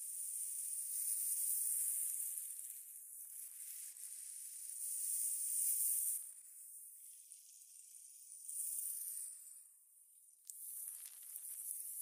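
Small waves washing up a pebble beach, the foam and backwash hissing over the stones as a thin, high hiss with no low rumble. It swells and fades about every four seconds, and there is a single short click about ten and a half seconds in.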